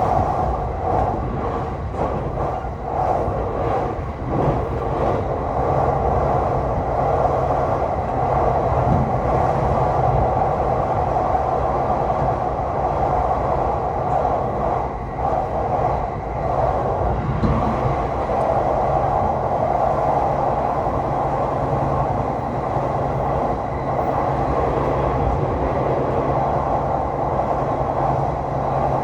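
Tokaido Line commuter train running along the track, heard from inside the carriage: a steady rumble of wheels on rail with a constant drone, and faint clicks in the first few seconds.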